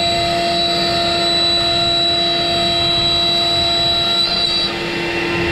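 Avid CNC router spindle running at speed with a steady whine while its small bit cuts through the wood; the highest part of the whine drops out about four and a half seconds in.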